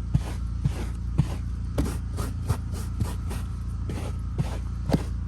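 Stiff hand brush scrubbed over car interior fabric to lift embedded dog hair, in quick scratchy strokes about two a second. A steady low hum runs underneath.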